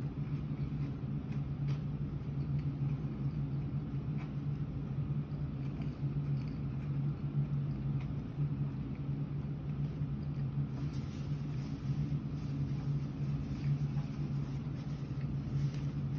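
A steady low hum with faint, sparse clicks of a man chewing a bite of fried fish.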